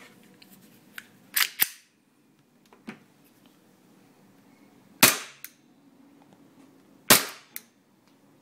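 WE Glock 26 gas blowback airsoft pistol firing three shots, about a second and a half in, at five seconds and at seven seconds. Each shot is a sharp pop followed by a second sharp click within half a second.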